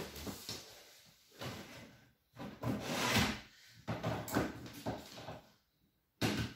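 Handling noises of cables and plugs being moved and rubbed about while connecting equipment: a string of irregular scrapes and rustles, a short pause, then a sudden knock near the end.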